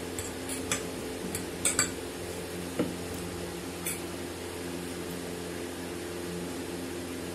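Metal forks clinking and tapping against ceramic plates as chow mein noodles are twirled up and eaten: a handful of sharp clinks in the first four seconds, over a steady low hum.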